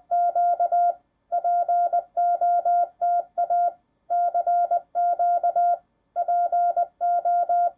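Morse code sent as a steady single-pitch beep tone, short and long beeps in groups with pauses between them.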